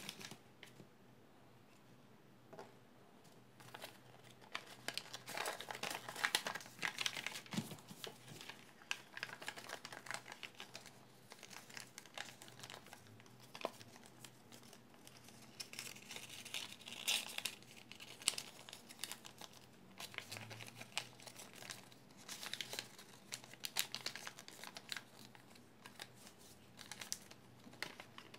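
Chart paper crinkling and crackling irregularly in the hands as it is folded and creased.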